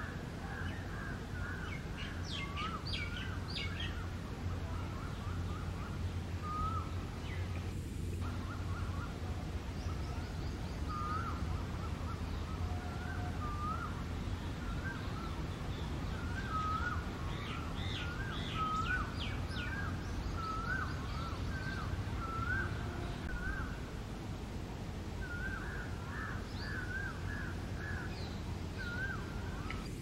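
Several birds chirping and calling, short hooked notes repeating every second or so, with bursts of quick higher chirps a couple of seconds in and again past the middle. A steady low rumble runs underneath.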